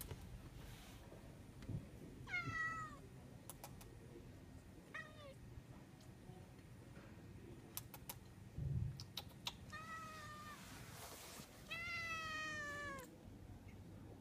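Tabby-and-white cat meowing four times: one about two seconds in, a short one around five seconds, then two near the end, the last the longest and sliding down in pitch. Light clicks and a soft thump fall between the meows.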